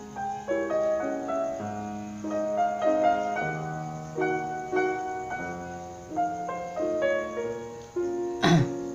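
Gentle background piano music: single notes and chords struck at an unhurried pace over sustained low notes. A short, sharp noise cuts in near the end.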